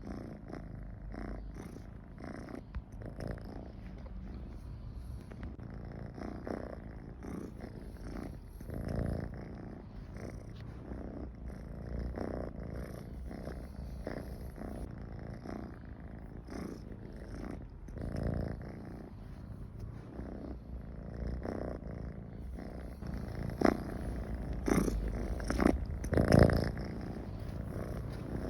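Domestic cat purring: a steady low rumble that swells now and then, the sound of a cat at ease. A few sharper clicks come near the end.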